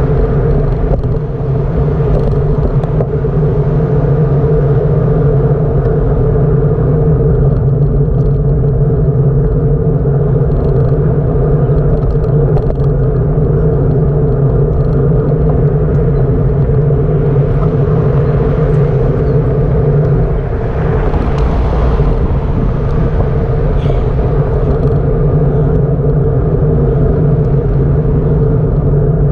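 Steady loud rumble of wind and road noise from riding a bicycle, with a constant low drone.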